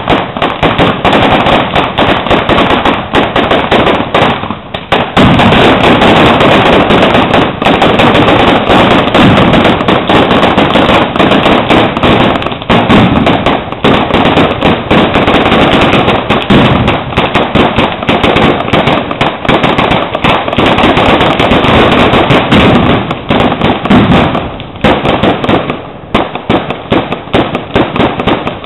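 A long, dense barrage of ground-level firecrackers going off in rapid, almost unbroken bangs and crackles, with brief lulls about four and a half seconds in and near the end.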